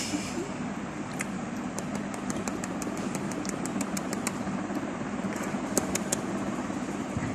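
A baby sucking and mouthing its fist, making a run of small wet clicks, over a steady low machine hum.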